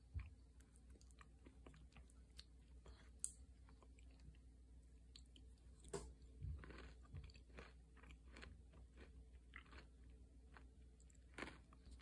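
Faint chewing and crunching of yogurt with granola and blueberries, with scattered small clicks and taps of a wooden spoon in a ceramic bowl.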